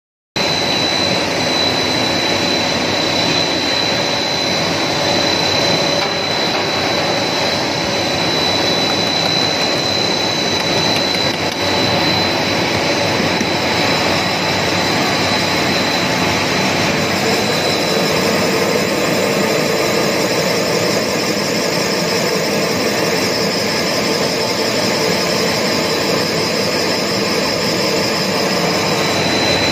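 Snack pellet extrusion line running: a steady mechanical din with a thin, high, steady whine over it.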